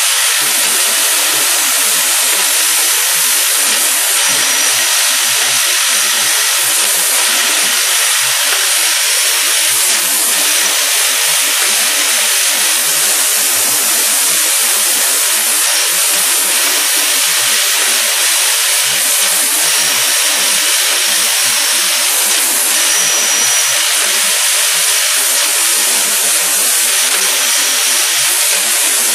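Automatic hinge tapping machine running: a loud, steady, high-pitched mechanical noise with no let-up, and a few faint knocks.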